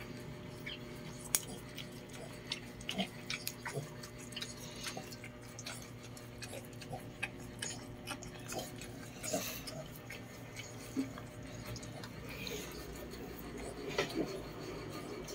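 Irregular wet clicks and smacks of a Lhasa Apso mother licking and nibbling at her newborn puppy, over a faint steady hum.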